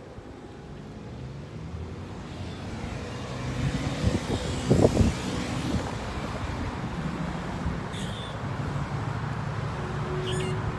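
Passing road traffic: engine and tyre noise that swells over the first few seconds and then holds steady, with a few louder low thumps about five seconds in.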